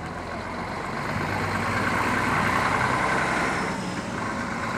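Coach's diesel engine running, growing louder for a couple of seconds as the bus pulls away, then easing off.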